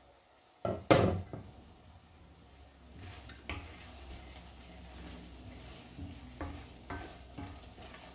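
Two sharp knocks against a pot about a second in, then a wooden spoon stirring thick stew in an enamelled cast-iron pot, knocking and scraping against the sides now and then over a low, steady simmering sizzle.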